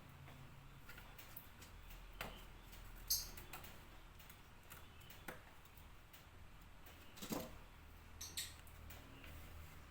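Faint, scattered light clicks and taps a second or two apart, some with a short high squeak, as bird-cage parts are handled and fitted together during assembly.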